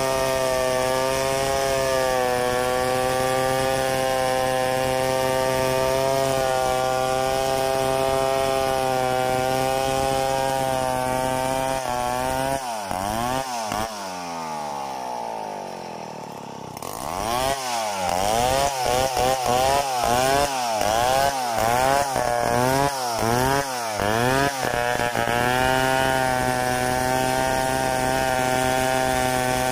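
Stihl 070 two-stroke chainsaw at full throttle ripping a log lengthwise in freehand milling. About twelve seconds in, the engine drops to idle. It is then revved in quick blips, about one a second, for several seconds, before settling back to a steady full-throttle cut.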